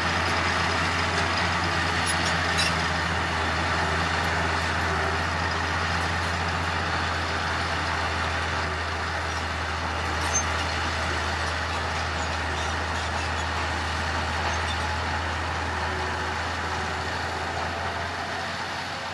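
Heavy diesel engine of earth-moving machinery running steadily, with a deep continuous hum and a couple of faint clicks, easing off slightly near the end.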